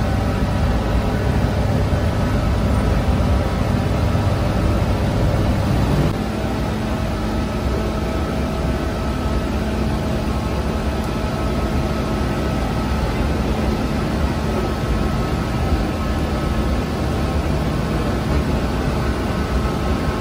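Steady machine drone of bakery equipment. The deep rumble eases about six seconds in, and a steady hum carries on after that.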